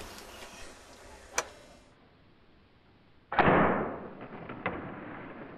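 A bow being shot: a sudden loud release about three seconds in that dies away within a second, followed by a few light clicks.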